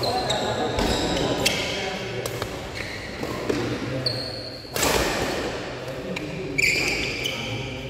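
A badminton rally: several sharp racket strikes on the shuttlecock and short squeaks of shoes on the court, over background voices.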